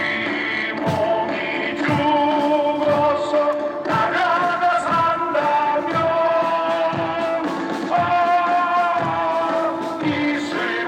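Music: a song with sung melody lines over a steady drum beat.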